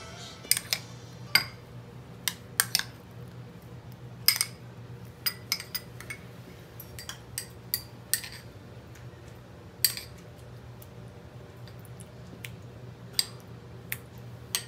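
Small metal spoons clinking against small glass bowls as spices and pastes are scooped and stirred: sharp, irregular clinks with a brief ring, a few every couple of seconds.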